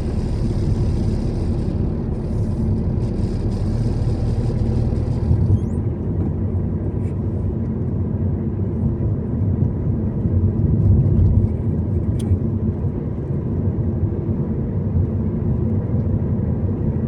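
Car driving on a road: steady engine and tyre rumble, with a higher hiss in the first few seconds and a brief swell in the rumble about ten seconds in.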